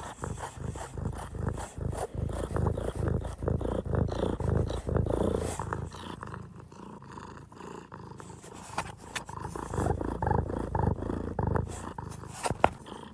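Domestic cat purring close to the microphone: a fast, low rattling that rises and falls in loudness, with one sharp click near the end.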